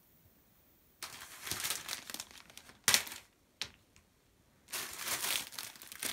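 Clear plastic packaging crinkling as bagged clothing is handled and set down on a table, in two bouts of rustling about a second in and again near the end, with a sharp tap between them.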